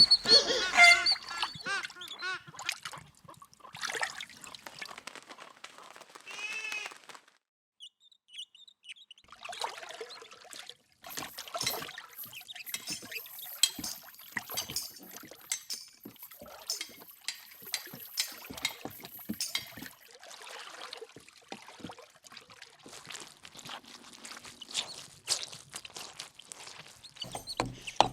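Foley effects made by hand with props: water poured and trickling among many irregular clicks, knocks and clinks, building a medieval town soundscape.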